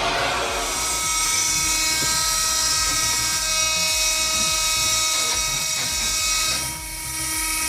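A machine's motor running with a steady high-pitched whine, dropping off about seven seconds in.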